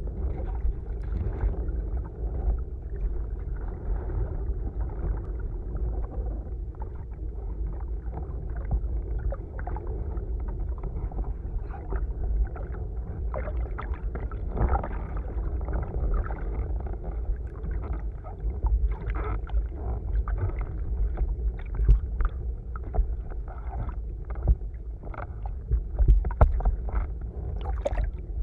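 Wind buffeting the microphone of a boom-mounted camera on a sailing windsurfer, a constant low rumble, with muffled rushing and slapping water from the chop. Short sharp splashes come often, more of them in the second half.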